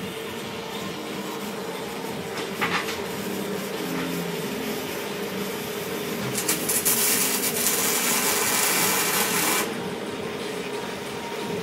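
TIG welding arc on copper, with filler rod being fed in: a steady hiss over a steady hum, with a brief crackle a few seconds in. The arc grows louder and harsher for about three seconds in the middle, then drops back.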